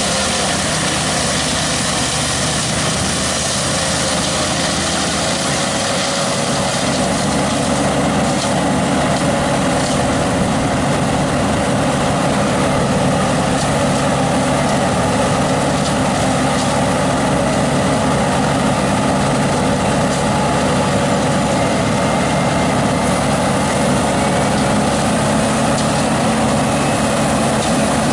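An engine of the tree-removal equipment running steadily at a constant speed, a dense mechanical drone with a steady hum.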